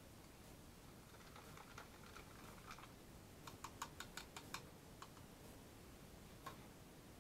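Faint soft rustling, then a quick run of about seven sharp clicks in a little over a second, about halfway through: a small metal whisk tapping against a small cup held over a bowl of soap oils. One more click comes near the end.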